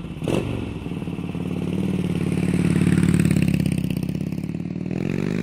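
Motorcycle engine running with a pulsing beat, growing louder about three seconds in, then rising in pitch near the end as it revs up.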